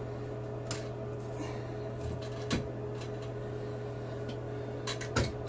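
A few light clicks and knocks of plastic drain pipe and slip nut as the nut is hand-tightened onto the sink's tailpiece, over a steady low hum.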